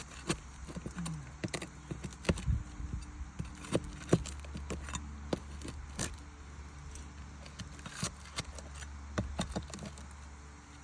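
Irregular sharp clicks and taps of a hand tool prying roofing nails out of asphalt shingles, with a low steady hum underneath.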